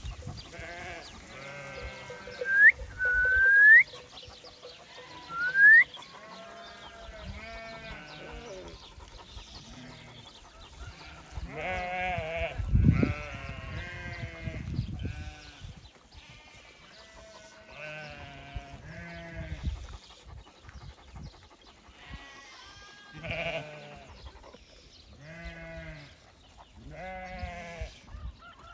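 A flock of sheep bleating, many overlapping calls throughout. Three short, loud rising whistles in the first six seconds, and a dull thump about halfway through.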